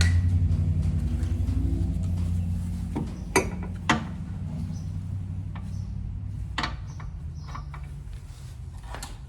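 A low mechanical hum that slowly fades away, with a few sharp metallic clinks of tools at the rear suspension.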